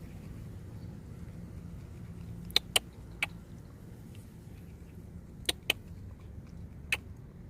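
Six sharp clicks, two of them coming as quick pairs, over a low steady rumble.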